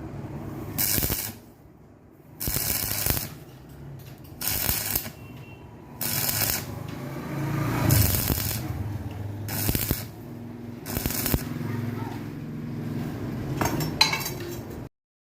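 Electric arc welding in short tack welds: about eight bursts of hiss, each about half a second long and one to two seconds apart, over a low hum. The sound cuts off sharply near the end.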